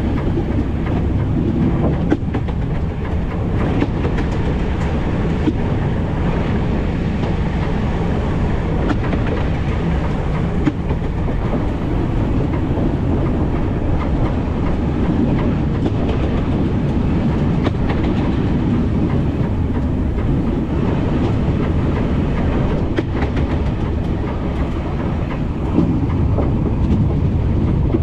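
Metre-gauge narrow-gauge train running along the track: a steady rumble of wheels on rail, with occasional clicks from the wheels passing over rail joints.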